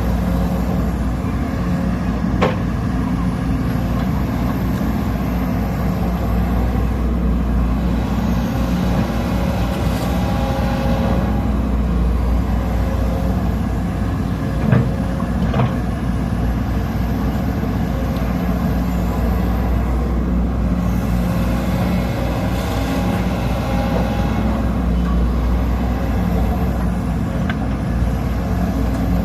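Sumitomo SH210 excavator's diesel engine running steadily, with a few sharp knocks scattered through, the loudest about halfway.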